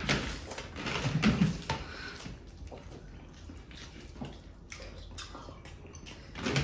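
Wet, squelching eating sounds: bare hands mashing and mixing rice with fish curry on metal platters, and fast chewing. The sounds come in uneven clusters, strongest in the first second and a half, then softer.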